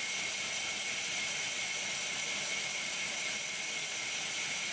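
Vertical band sawmill running, giving a steady hiss with a fixed high whine.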